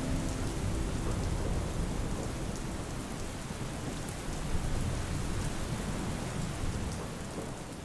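Steady hiss of rain with a deep low rumble, fading out near the end.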